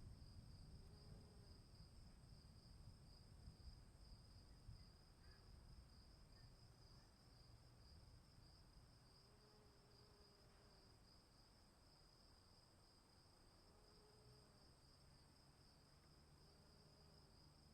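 Faint low rumble of distant thunder dying away over the first several seconds, under a steady high chirring of crickets that holds throughout.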